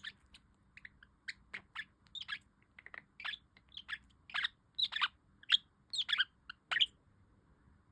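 Budgerigar chirping: a quick run of short, high chirps that stops about seven seconds in.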